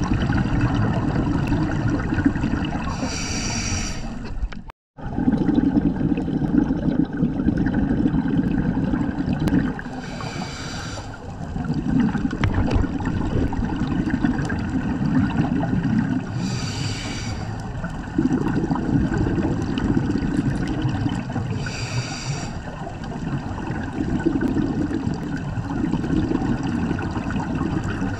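Scuba regulator breathing heard underwater: a short hissing inhale about every six seconds, each followed by a long, low bubbling exhale. The sound drops out briefly about five seconds in.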